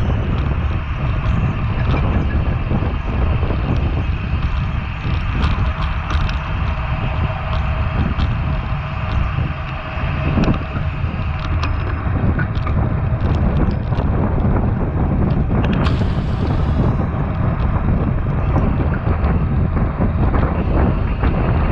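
Wind rushing and buffeting the microphone of a bicycle-mounted action camera at race speed: a steady loud rumble with a hiss, with scattered short clicks throughout.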